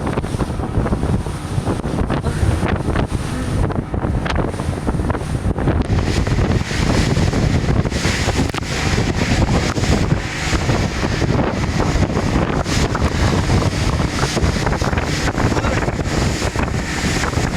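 Strong wind buffeting the microphone over rushing sea water, aboard a boat in rough waves.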